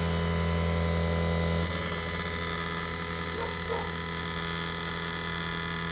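Electric chainsaw-chain grinder's motor humming steadily; the low hum drops in level about two seconds in.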